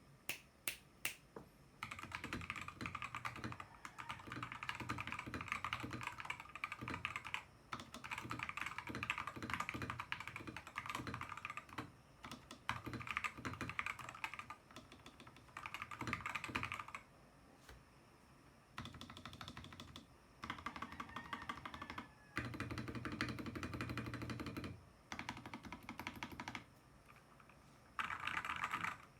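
Typing on a Royal Kludge G68 mechanical keyboard with Royal Kludge Red linear switches and XDA keycaps. A few single key presses come first, then fast runs of keystrokes in stretches of a few seconds, with short pauses between them.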